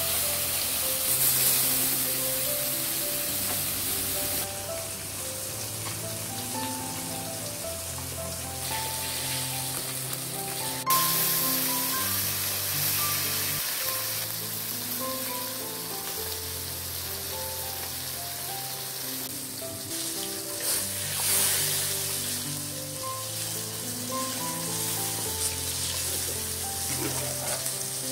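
Whole sarputi (olive barb) fish sizzling as they shallow-fry in hot oil in an iron kadai, a steady hiss under background music with a slow melody of held notes. A single sharp click about eleven seconds in.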